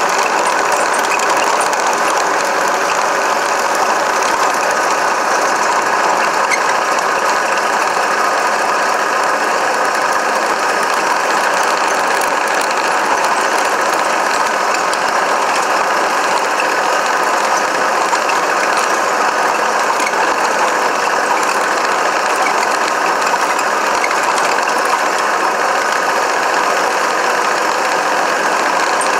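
Radio-controlled car driving on a dirt track, heard from a camera mounted on it: a steady, loud mechanical whir and rattle of its drivetrain gears.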